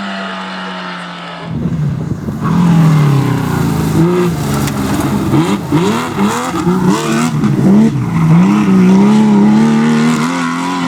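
Rally car engine on a shakedown stage. A steady engine note gives way abruptly, about a second and a half in, to a much louder engine revving hard, its pitch rising and dropping again and again through gear changes and lifts off the throttle.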